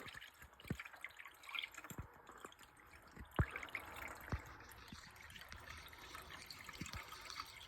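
Coolant being poured from a jug into the radiator of a Hemi engine's cooling system: faint trickling and dripping with a few separate louder drops, as the system is topped up.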